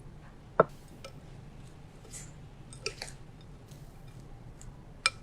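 Crushed nuts with melted butter being stirred in a bowl: soft, moist crunching and scraping, with one sharp knock about half a second in and a few lighter clicks.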